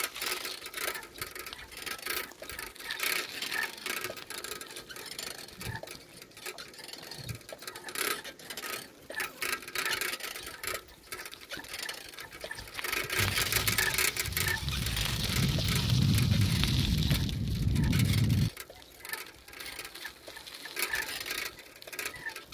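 Handling and walking noise from a handheld camera microphone outdoors: irregular light knocks and rustles. About thirteen seconds in comes a louder low rumble with a hiss that lasts about five seconds and stops suddenly.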